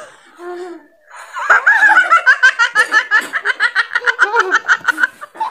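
Young women laughing hard. After a quiet first second, one loud high-pitched laugh comes in quick, even ha-ha pulses, about seven a second, and stops shortly before the end.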